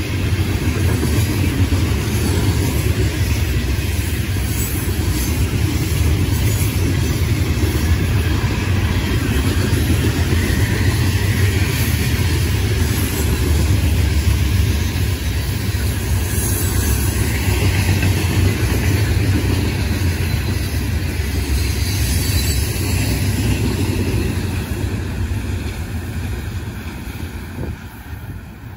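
Open and covered hopper cars of a Florida East Coast Railway freight train rolling past: a steady low rumble of steel wheels on rail. It fades over the last few seconds as the end of the train moves away.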